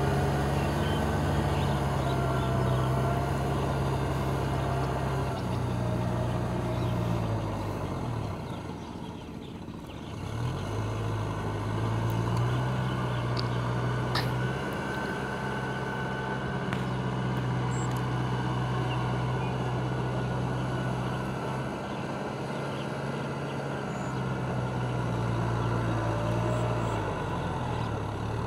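Kubota M6040 SU tractor's four-cylinder diesel engine running steadily while it cultivates a flooded rice paddy. About eight seconds in the engine note drops and fades, then picks back up a couple of seconds later, and it sags briefly again near the end.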